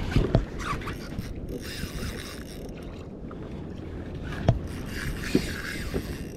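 Wind buffeting the microphone and water lapping against a kayak hull, with a few sharp knocks, the loudest about four and a half seconds in.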